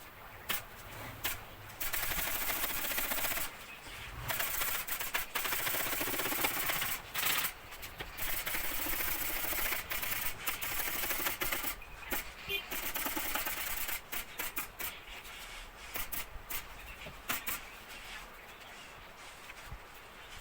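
Air-powered upholstery tools at work: long bursts of hissing, several seconds apart, mixed with many sharp clicks.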